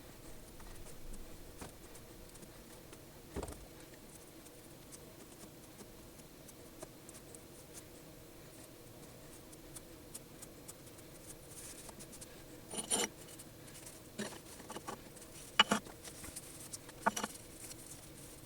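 Faint handling noises of small-scale hand work: light scratching and rubbing, then a few short sharp knocks or clicks in the last third, the loudest a little past the middle of that stretch.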